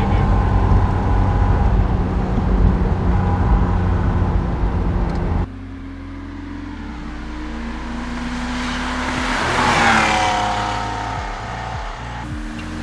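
Mk2 Toyota Celica Supra's inline-six engine running steadily as the car drives along, heard as a low drone from inside. About five seconds in the sound cuts to the car heard from outside, its engine note growing louder as it approaches, then falling away as it passes.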